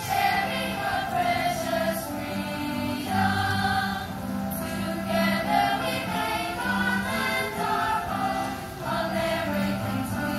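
A middle school chorus of young voices singing together in sustained phrases, over low held accompaniment notes.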